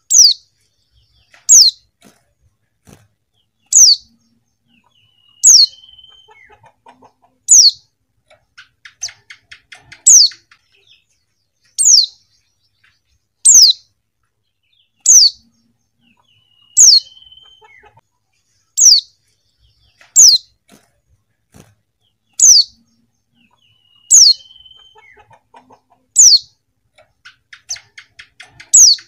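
Female white-eye (pleci) calling: a single short, high note that drops in pitch, repeated about every two seconds. A faint rapid rattle comes between the calls twice.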